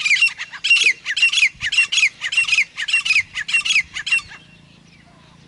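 Grey francolin calling: a loud series of repeated phrases, each with a falling note, about two a second. The series stops about four seconds in.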